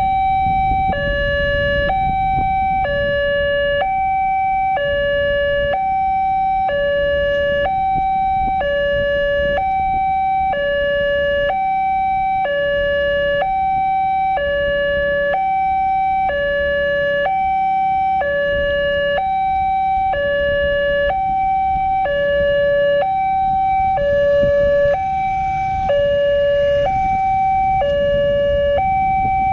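Indonesian level-crossing warning alarm sounding from the loudspeaker on the crossing signal mast. It is an electronic two-tone chime, a higher and a lower tone alternating evenly at a little over one tone a second, repeating without a break. It signals that the barriers are down and a train is approaching.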